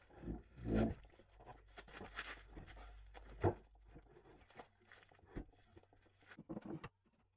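Plywood drawer cabinet being shoved into place under a wooden workbench frame: scattered knocks, scrapes and bumps of wood on wood, the sharpest a knock about three and a half seconds in.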